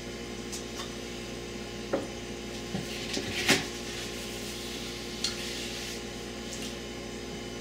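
A mug being handled and set down on a kitchen counter: a few light knocks and clinks, the loudest about three and a half seconds in, over a steady room hum.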